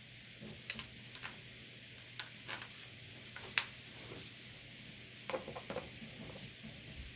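Scattered light clicks and taps of small metal screws and chair parts being handled during assembly, with a sharper click about three and a half seconds in and a short cluster of small knocks around five seconds in.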